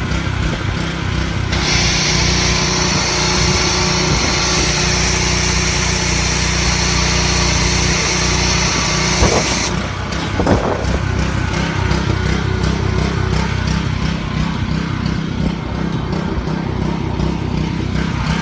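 Stanley 2150 pressure washer running with a low, steady pulsing, its spray hissing strongly for the first half and then dropping off. Two brief knocks come near the middle.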